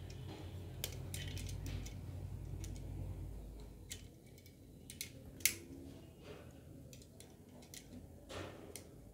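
Light clicks and taps of CPU cooler mounting-bracket parts being handled and lined up, a few scattered strikes, under a low hum that stops about three and a half seconds in.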